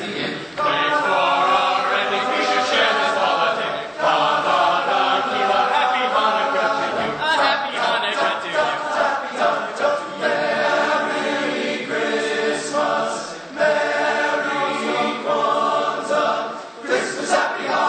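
A high school choir singing a cappella, holding chords in long phrases with brief breaks between them.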